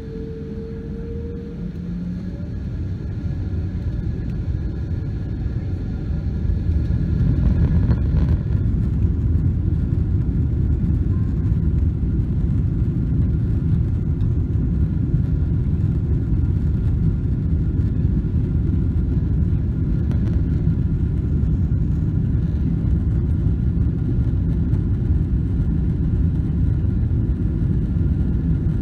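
Boeing 777-200ER's Rolls-Royce Trent 800 engines spooling up to takeoff thrust, heard inside the cabin. A rising whine comes first and the sound grows louder over the first several seconds, then settles into a steady, loud, low rumble of engines and wheels during the takeoff roll.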